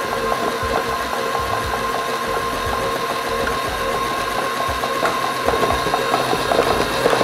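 Electric stand mixer running, its motor giving a steady whine with a fast, regular ticking from the beater turning through stiff cookie dough as flour is added.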